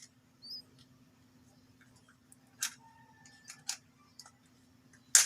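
Small plastic parts being pushed and clicked while a device is taken apart: a few scattered light clicks and one loud sharp click near the end, over a faint steady hum.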